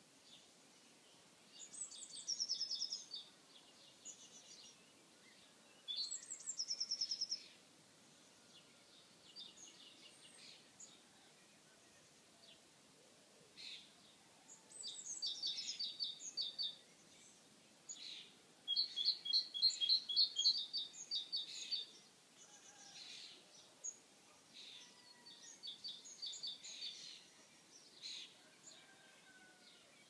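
Garden songbirds singing: short phrases of rapid high notes, some sliding downward, come every few seconds with fainter calls in between.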